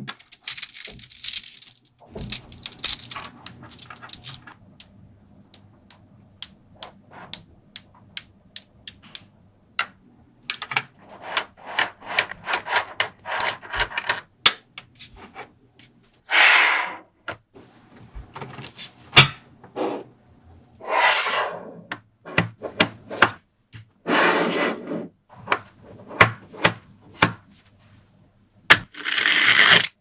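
Small metal magnetic balls clicking sharply as they snap onto one another, in quick irregular runs. Several longer rattling bursts come as many balls shift and roll against each other at once.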